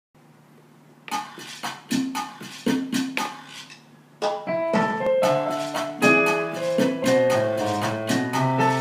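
Digital piano playing a syncopated guajira-style groove. Short, detached right-hand chords start about a second in, and the left hand's bass notes join at about four seconds, filling out into a fuller, sustained texture.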